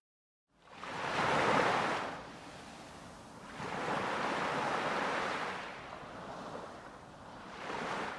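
Open-sea waves washing and breaking alongside a moving boat, swelling and fading three times.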